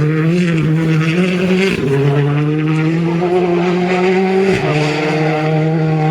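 World Rally Car's turbocharged four-cylinder engine pulling hard at high revs, the pitch climbing slightly between two quick upshifts, about two seconds in and again about four and a half seconds in.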